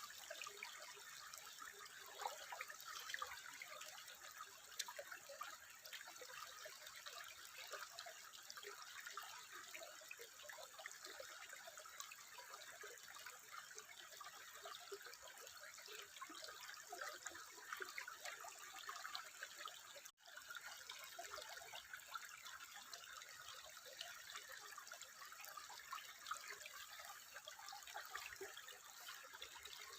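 Steady trickling, babbling water with small splashy flickers, faint throughout; the sound drops out for a split second about two-thirds of the way through.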